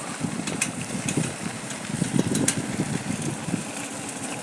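Motorcycle engine running while the bike rides over a rough dirt road, with an uneven rumble and a few sharp clicks.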